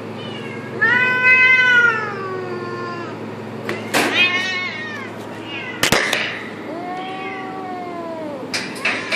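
Long-haired cat yowling in drawn-out, rising-and-falling caterwauls while mating, with one cat mounted on the other and gripping its neck. The calls come three times; the first, about two seconds long, is the loudest, and shorter calls follow near the end. A single sharp knock comes about six seconds in.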